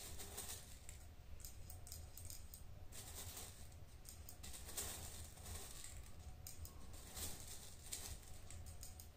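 Steel BBs clicking and rattling faintly as they are dropped one after another into the loading port of a CO2 Glock 19 BB pistol's magazine.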